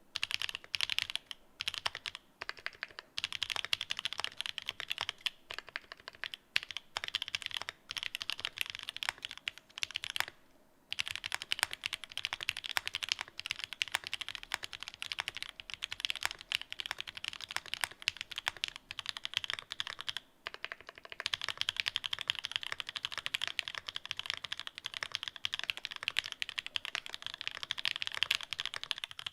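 Fast continuous typing on The New Eighty mechanical keyboard fitted with pink linear switches and Cherry-profile keycaps: a dense run of keystroke clacks, broken by two short pauses about ten and twenty seconds in.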